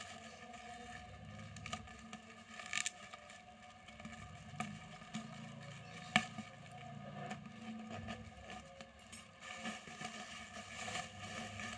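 Plastic packaging handled and opened: irregular crinkling and rustling with scattered sharp crackles and snaps.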